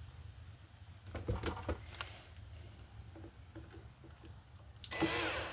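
A few light knocks and clicks as the wood and drill are handled. Near the end, a power drill starts up with a rising whine, driving a screw into a pilot hole in the pine.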